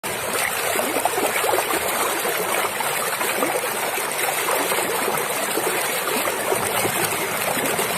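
Stream water running over rocks, a steady babble full of small bubbling gurgles.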